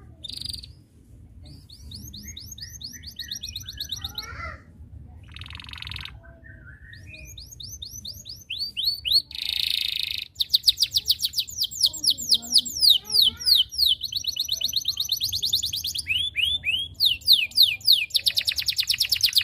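Yellow domestic canary singing. A few scattered chirps build, about eight seconds in, into long rolled trills of rapid, evenly repeated falling notes that run almost without a break.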